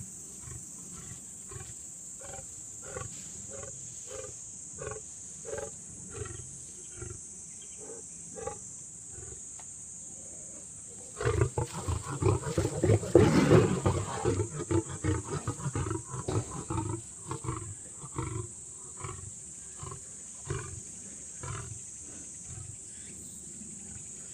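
Lions growling in a steady run of short growls, about one and a half a second, breaking about eleven seconds in into a loud burst of snarling that lasts some five seconds as the lion and lioness tussle, then settling back into short growls.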